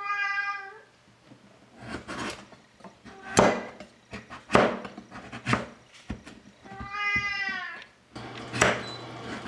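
A domestic cat meowing for its dinner, two drawn-out meows of under a second each, one at the start and one about seven seconds in. Between them come sharp knocks and clatter, the loudest about three and a half seconds in.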